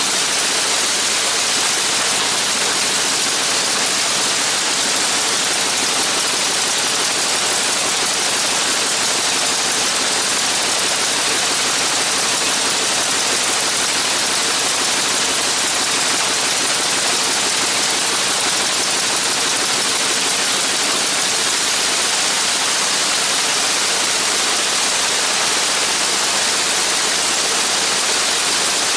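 Radial engine of a Spirit of St. Louis replica running steadily on the ground, heard as an even rushing noise from the engine and propeller blast with no change in speed.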